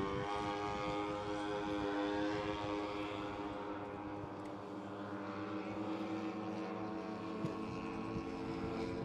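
Twin engines of a giant-scale radio-controlled Grumman S-2 Tracker model in flight, a steady drone that fades as the plane draws away, then grows a little louder again in the second half.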